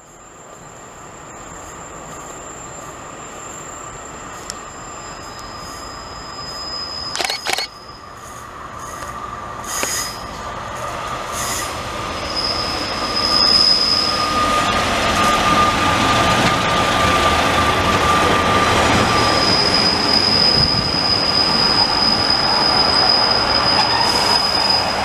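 Diesel multiple unit approaching and running past along the platform, its rumble growing steadily louder, with a sustained high-pitched wheel squeal and a couple of sharp knocks about seven and ten seconds in.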